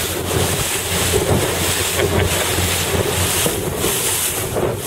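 Wind buffeting the microphone over water rushing and splashing along the hull of a Melges 24 sportboat under sail, a steady noise.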